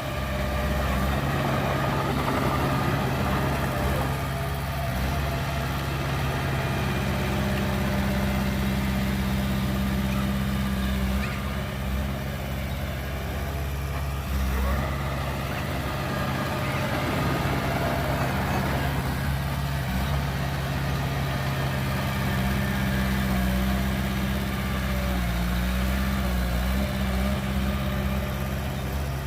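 Heavy diesel earthmoving machinery, dump truck and bulldozer engines, running steadily with a deep low hum and a few brief shifts in engine pitch.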